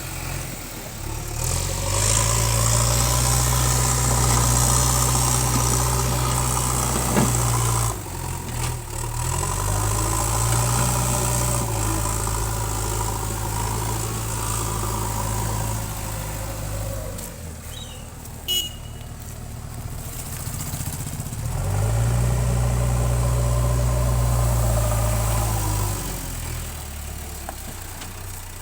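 JCB backhoe loader's diesel engine running, revving up and holding under load three times, then settling back between, as the machine works. A brief sharp squeak comes about two-thirds of the way through.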